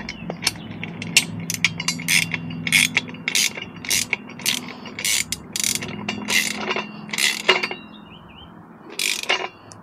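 Ratcheting combination wrench clicking in short repeated strokes, about two a second, as a bolt through the steel square-tube frame of a hitch bike rack is tightened. Near the end the strokes pause, then one last burst.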